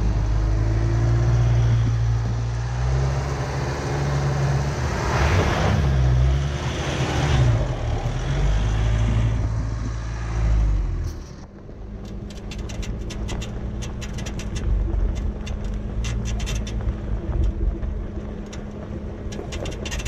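Jeep 4x4's engine running on a rough trail, its pitch shifting as the throttle changes. About halfway through the engine sound drops away abruptly, leaving a quieter steady hum with rapid crackling ticks.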